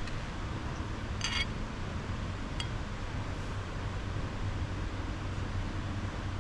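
Steady rushing noise with a low hum, a light clink about a second in and a faint tick a second or so later.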